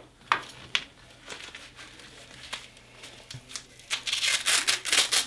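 Ankle-cuff straps for resistance bands being handled and fastened: a few light clicks and rustles of the metal snap hook and strap, then about four seconds in a loud stretch of velcro rasping as the cuff is strapped on.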